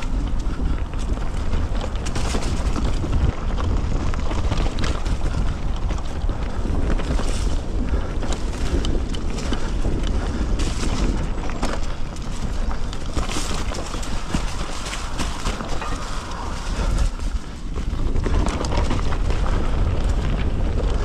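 Wind rushing over a chest-mounted action camera's microphone, mixed with the rattle and knocks of a full-suspension mountain bike descending a rough dirt trail at speed. Tyres run over dirt and roots, with many short clatters from bumps and a brief lull about 17 seconds in.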